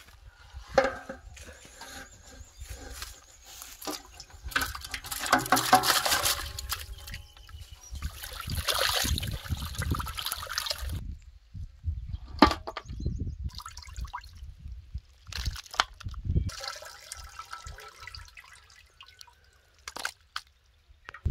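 Water splashing and trickling in irregular spells, with scattered knocks.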